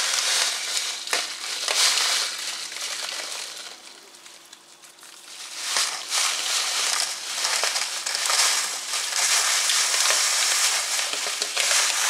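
Coarse dishwasher salt poured from a plastic bag into a dishwasher's salt reservoir: a gritty rustle of running crystals mixed with the bag crinkling in the hand. It eases off about four seconds in, then picks up again a couple of seconds later.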